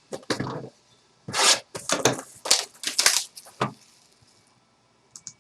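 Trading-card packaging being torn open by hand: a run of short ripping and crinkling bursts over the first few seconds, then a couple of faint clicks near the end.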